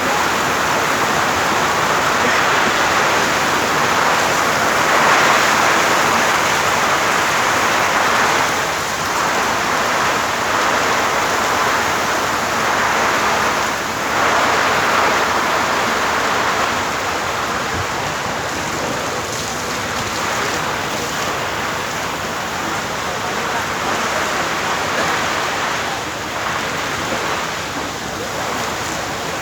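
Heavy rain falling steadily, a dense hiss that swells and eases every few seconds.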